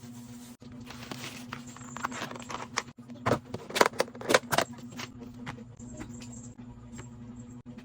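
Items being handled and set into a fridge: a run of sharp clinks and knocks of containers, four loud ones in quick succession in the middle, over a steady low hum.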